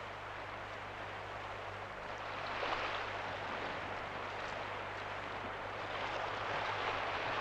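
A steady rushing noise that swells twice, about three seconds in and again near the end, over a low steady hum.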